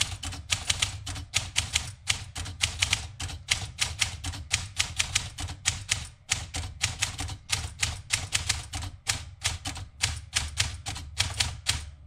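Olympia Traveller de Luxe S manual portable typewriter being typed on: a fast, continuous run of key strikes, about four to five a second, each a sharp typebar clack against the platen, with a short lull about halfway through.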